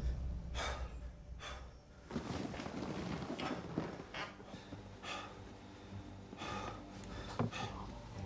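A person breathing audibly, a series of short breaths and sighs, over a faint steady low drone.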